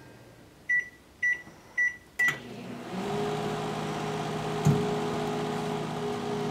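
Microwave oven keypad beeping four short times as the cooking time is keyed in, then the oven starting up about two seconds in and running with a steady hum. A single click comes a little before the end.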